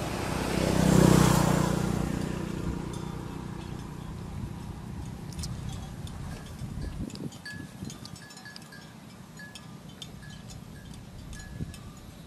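A motor vehicle passing close by, loudest about a second in and fading away over the next few seconds. Short high chirps and faint clicks then repeat against a quieter background.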